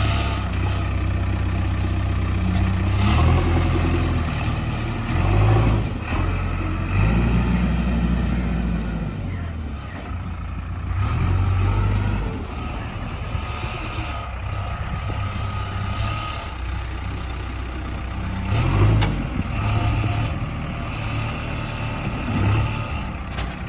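Heavy diesel engine running, its revs rising and falling several times, with a few brief knocks.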